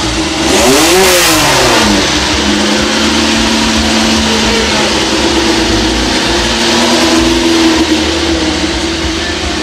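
Vintage racing car engine blipped once, rising and falling in pitch, then settling into a steady idle.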